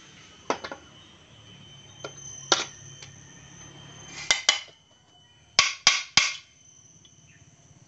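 Metal engine parts knocking and clinking as a sealant-coated crankcase half of a Yamaha Vixion engine is fitted into place: scattered sharp knocks, then three quick taps a little past halfway.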